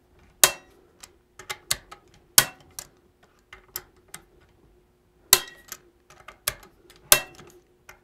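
Small preset torque wrench clicking as it is turned on scope mounting-ring screws, the click that signals the set torque has been reached. Four louder sharp clicks come at uneven intervals, with lighter ticks between them.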